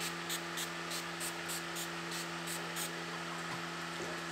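Finger-pump makeup setting spray bottle misting in a quick series of about ten short hissing puffs, roughly three a second, stopping about three seconds in. A steady low hum runs underneath.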